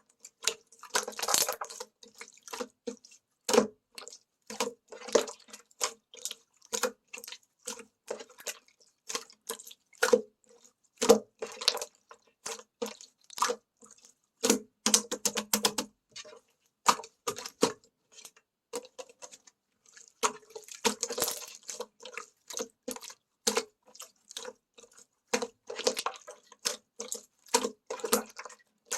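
Slime being pressed, stretched and poked by hand, making irregular wet clicks and small pops in quick clusters.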